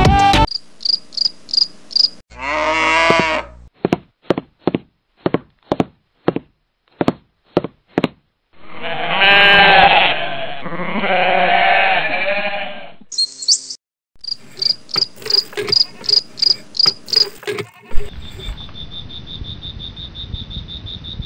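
A string of farm-animal and insect sounds: repeated high cricket-like chirps, bleating calls that bend in pitch, and a run of sharp clicks about two a second. Near the end a steady high-pitched whine with hiss starts: the small DC-motor water pump running.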